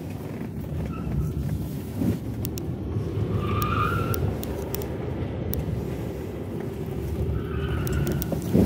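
Road and tyre rumble inside the cabin of a Tesla Model 3 being driven. There are scattered small clicks, and brief higher-pitched sounds about three and a half seconds in and again near the end.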